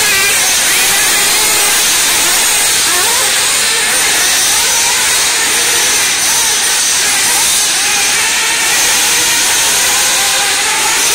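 Radio-controlled off-road cars running on a dirt track, their small motors whining up and down in pitch over a steady loud hiss.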